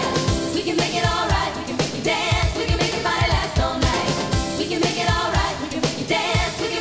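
Live dance-pop music with a steady, driving kick drum beat and sung vocals.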